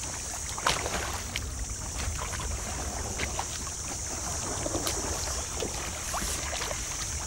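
Canoe paddles dipping and splashing irregularly in calm water as a canoe is paddled, over a steady high insect drone.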